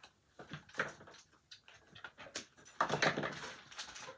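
Tape being pulled off a small roll in short tugs, with a longer, loud rip a little under three seconds in, among small clicks from handling the roll.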